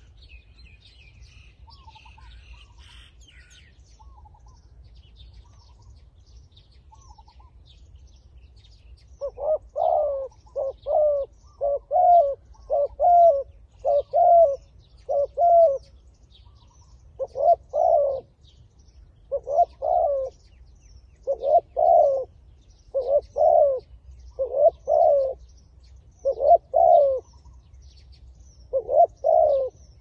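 Spotted dove cooing. A run of short coos starts about nine seconds in and repeats in little groups about once a second, with faint small-bird chirps above it before the cooing begins.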